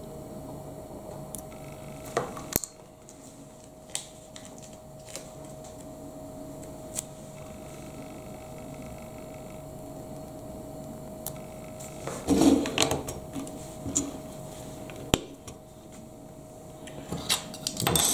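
Lego bricks handled by hand: scattered light plastic clicks and taps, a longer spell of handling noise about twelve seconds in, and pieces clattering near the end. A faint steady hum runs underneath and stops shortly before the clatter.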